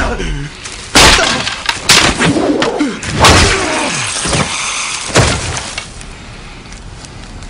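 Film sword-fight sound effects: four sharp sword strikes about a second apart, the last about five seconds in, with falling pitched cries between them.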